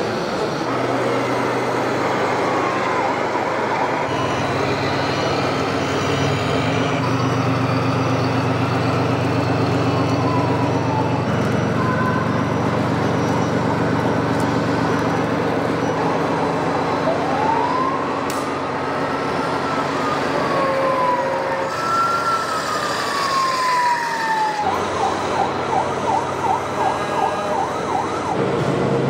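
A vehicle siren wailing in slow rising and falling sweeps over a steady low engine hum. Near the end it switches to a fast pulsing tone.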